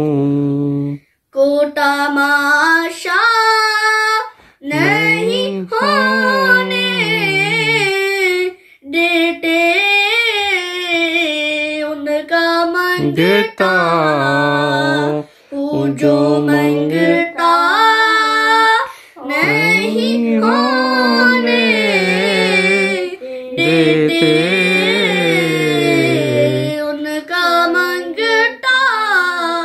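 A boy singing a devotional song unaccompanied, in phrases of a few seconds with short breaks for breath.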